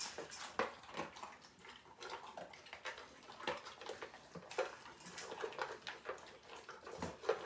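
Soft, irregular clicks and clinks of dry dog food and feeding bowls at the dogs' feeding time.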